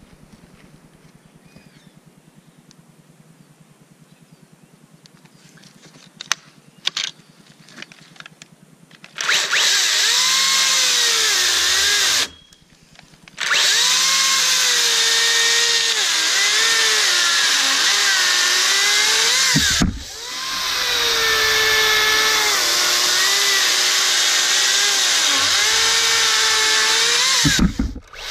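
Makita DUC353 36-volt brushless cordless chainsaw. After several quiet seconds with a few clicks, the electric motor starts about nine seconds in and runs hard. Its pitch sags and recovers again and again, as when the chain bites into wood while cutting a log. It stops for about a second near the twelve-second mark, then runs on with brief dips near twenty seconds and near the end.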